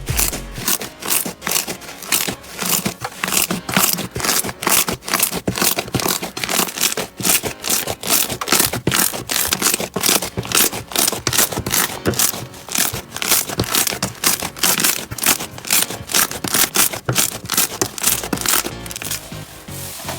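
Slime being pressed and squeezed by hand, making rapid, irregular crackling clicks and pops.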